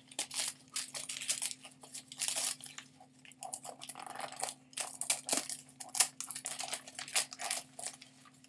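Wrapping paper being torn and crumpled by hand as a small wrapped gift is unwrapped: irregular, sharp crinkles and tears that come in quick bunches. A faint steady low hum lies underneath.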